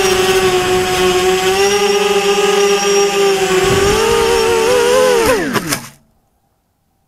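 A camera drone's electric motors and propellers whine steadily in flight. About five seconds in, the whine swoops steeply down in pitch with a few sharp clicks as the drone comes down in the grass, then cuts off abruptly to near silence.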